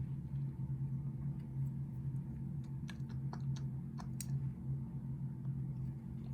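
Light metallic clicks and ticks of small lock parts being handled as driver pins are taken out of a lock's pin chambers. Most of the clicks come in a cluster between about two and a half and four seconds in, over a steady low hum.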